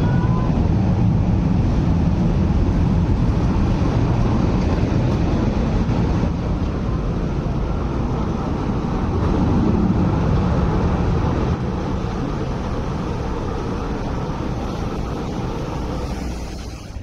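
Hong Kong Peak Tram sixth-generation funicular tramcar rolling past on its rails: a steady low rumble that eases off about two-thirds of the way through.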